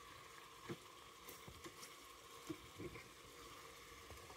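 Faint, soft taps and scrapes of a plastic rice paddle turning pieces of fried pork in a multicooker's inner bowl, over a faint sizzle of the meat frying.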